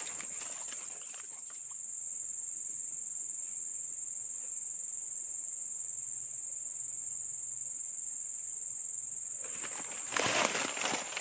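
Steady high-pitched insect drone, one unbroken tone from cicadas or crickets. Rustling and crackling come in near the end.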